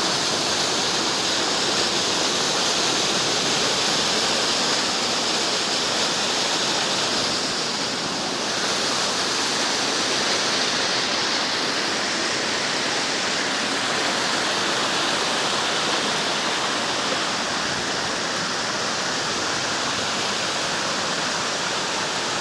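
Waterfall about 35 metres high, water falling into its pool with a steady, even rush.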